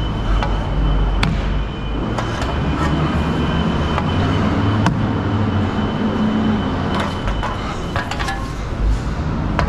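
An engine running steadily, with scattered metallic clicks and clanks from the trailer's metal side rail being handled. A thin, steady high tone stops about eight seconds in.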